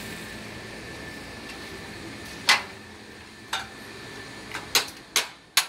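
Oyster shells clacking as they are knocked together and set down on a slatted wooden table during shucking: a handful of sharp knocks from about halfway through, the loudest about two and a half seconds in and a quick run of them near the end, over steady background noise.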